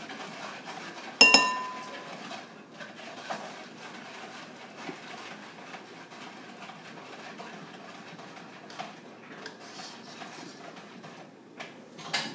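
A tin can of sweetened condensed milk held over a mixing bowl: one sharp metallic clink with a brief ringing tone about a second in, then quieter scraping and light taps as a spatula scrapes the thick milk out of the can.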